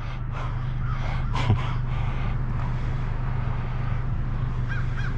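Steady low hum of an idling vehicle engine, with a few faint crow caws near the end.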